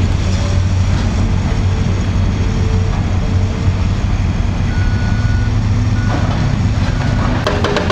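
Heavy diesel construction machinery running steadily at a bridge demolition, with a backup alarm beeping on and off. Near the end a fast, regular rattling clatter begins.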